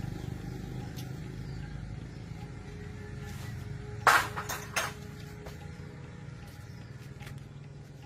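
A low steady motor hum, with a short clatter of three or four sharp knocks about four seconds in.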